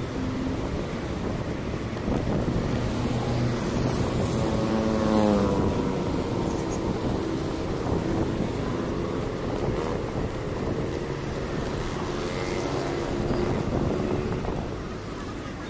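Road traffic: running vehicle engines over a steady hum of road noise, with one engine passing and falling in pitch about five seconds in.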